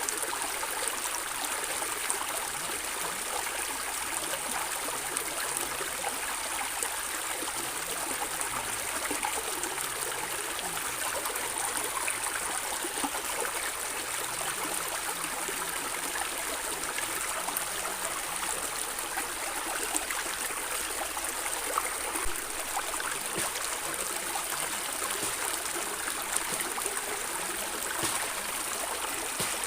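Stream water flowing and gurgling steadily, with many small splashes and trickles.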